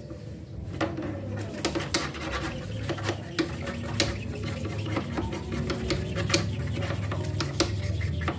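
A bird cage being cleaned: repeated rubbing and scraping with irregular sharp clicks and knocks, several a second.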